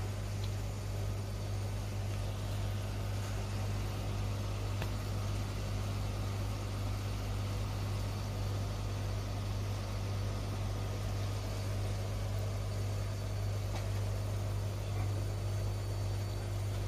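Aquarium sump and filtration pumps running: a steady low electrical hum over a constant even hiss.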